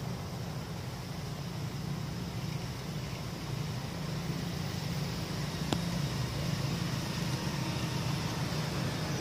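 Steady low rumble with a hiss over it, like wind or distant traffic, with one sharp click about six seconds in.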